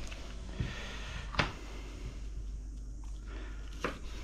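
Kitchen knife slicing through a red onion and knocking on a wooden cutting board: three short sharp knocks, the loudest about a second and a half in, over a faint steady low hum.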